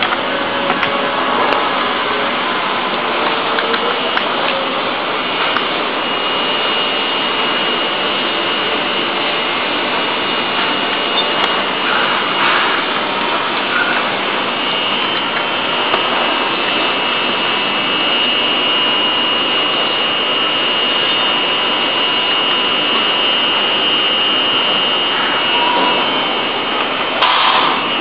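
Steady, loud mechanical rushing noise with a faint high whine that grows clearer about halfway through, and a few faint knocks.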